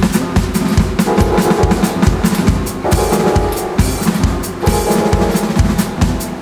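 Roland TD-17 electronic drum kit playing a fast, busy pattern of bass drum and snare strokes, with a held keyboard or synth chord layered over it that drops out and comes back several times.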